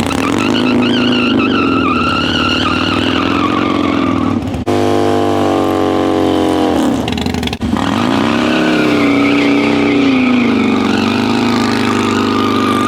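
Motorcycle engine revving high, its pitch rising and falling, in three pieces cut together, with sudden breaks about four and a half and seven and a half seconds in.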